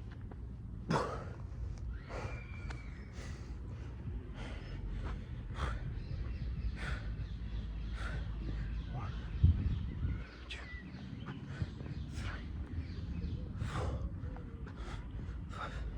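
A man breathing hard under exertion, with a run of sharp, quick exhalations and gasps, while doing duck walks in a 15 kg weight vest. A low rumble runs underneath.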